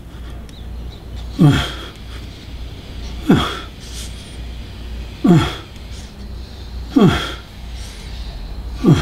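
A man's short, strained vocal outbursts, each sliding down in pitch, five of them about two seconds apart, as he tenses and vibrates his face and neck muscles in an isometric exercise.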